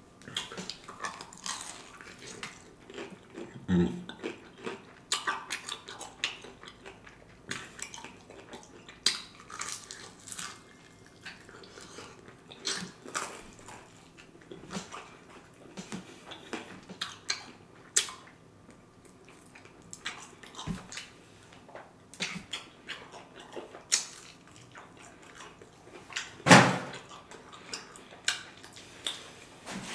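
Close-up eating sounds of a person biting and chewing fried chicken wings: irregular crunches, wet mouth smacks and clicks, with a few louder ones.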